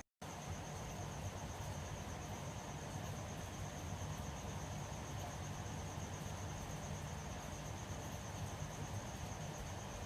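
A cricket trilling steadily in fast even pulses over a low hum and hiss.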